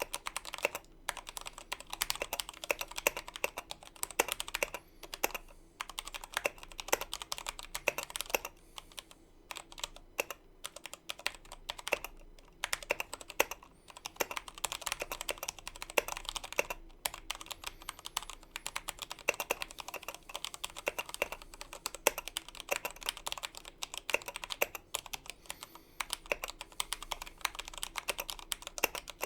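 Typing on a Royal Kludge RK61 60% mechanical keyboard with linear RK Red switches: a fast, irregular run of key clacks with short pauses between bursts.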